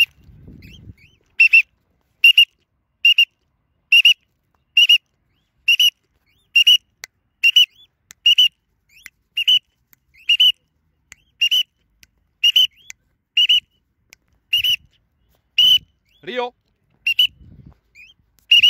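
Cockatiel contact calls: short, loud, high-pitched calls repeated steadily about once a second. Briefly, near the end, a person's voice calls out.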